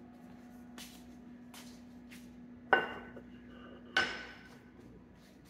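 Two sharp metallic clanks of kitchenware set down on a counter, about a second apart, each ringing briefly. A faint steady hum lies under them.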